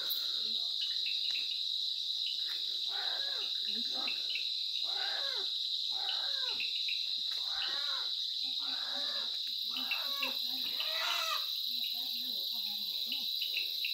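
Crickets trilling in a steady, high-pitched night chorus. Fainter, lower sounds with a rising-and-falling pitch come and go about once a second beneath it.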